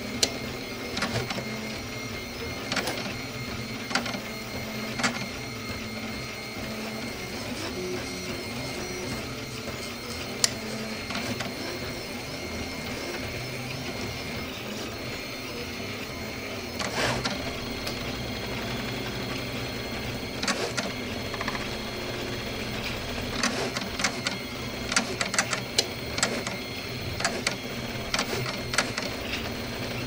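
RepRap 3D printer running a print: its stepper motors whine in steady tones as the print head moves over the part, with sharp clicks scattered through, more of them in the second half.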